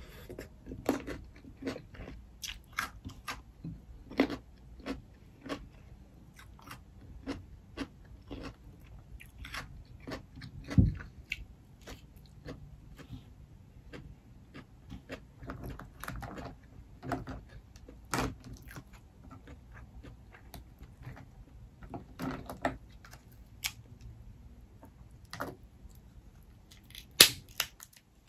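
Close-up chewing and wet mouth sounds of someone eating snow crab meat with rice, in irregular short clicks and smacks. There is a low thump about eleven seconds in, and a sharp crack near the end as a snow crab leg shell is broken open by hand.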